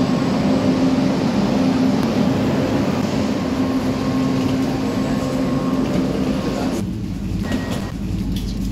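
Steady hum of a stationary double-decker electric commuter train under a big station roof, with general platform noise. About seven seconds in, the higher part of the noise drops away and only a low rumble remains, the muffled sound from inside the carriage.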